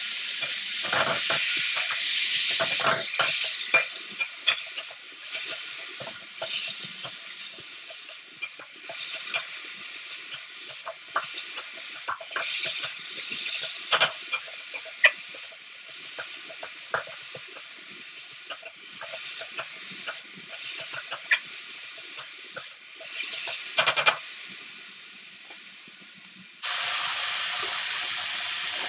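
A flat metal spatula stirring and scraping grated squash around a hot metal kadai, with many short scrapes and clicks against the pan. Oil is sizzling underneath, loudest in the first few seconds and again near the end.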